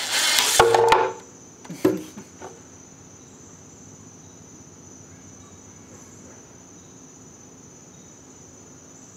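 Ryobi impact driver driving a screw into wood, its hammering clatter stopping about a second in. A few short knocks follow, then only a faint steady high-pitched whine.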